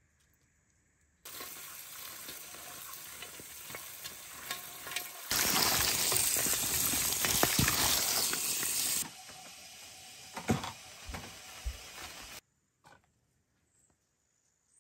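Water pouring onto freshly picked string beans in a metal basin while a hand stirs and rubs them, washing them. The rush of water is loudest for about four seconds in the middle, with softer splashing and clicks of the beans before and after.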